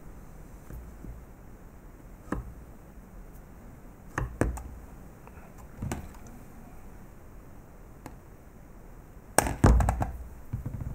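Scattered knocks and taps of handling on a workbench as a battery cell and a spot welder's pen probes are set down and moved. There is a handful of single clicks, then a louder quick cluster of knocks near the end.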